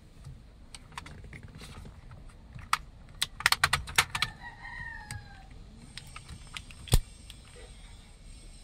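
Sharp plastic clicks and rattles from a car's dashboard AC/heater push-button switch module being worked loose from the climate-control panel by hand. There is a quick cluster of clicks a little over three seconds in and a single louder click near seven seconds. A faint falling call sounds in the background about four seconds in.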